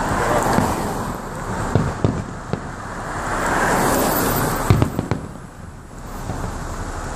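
Aerial fireworks exploding: a series of sharp bangs, the loudest cluster about five seconds in, over a steady wash of noise, heard from inside a car.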